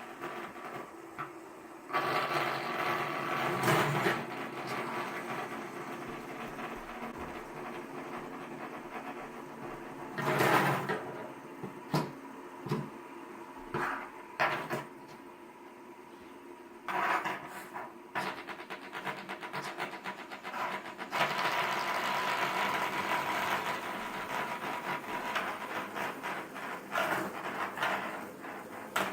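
Fidget spinners whirring on their ball bearings, with clicks and knocks as they are handled and flicked, and several louder stretches of whirring.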